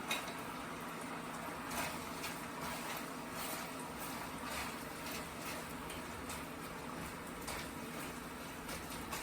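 Food simmering on a stovetop: a steady low hiss with small pops and crackles scattered through it, as the pot's water cooks off.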